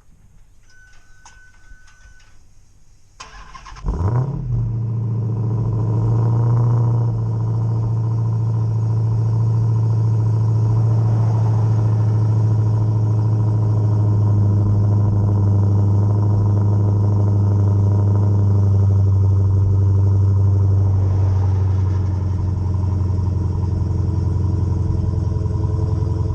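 Dodge Hellcat's supercharged 6.2-litre V8 cranked and started about three seconds in, flaring briefly as it catches, then settling into a loud, steady idle.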